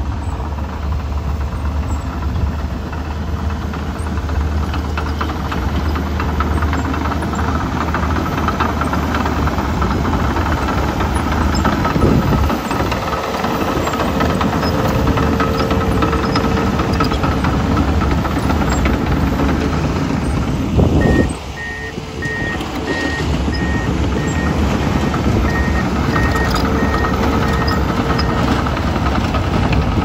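Komatsu crawler bulldozer's diesel engine running steadily under load as it pushes dirt. About two-thirds of the way through, after a short louder burst of noise, a back-up alarm starts beeping steadily at roughly one beep a second.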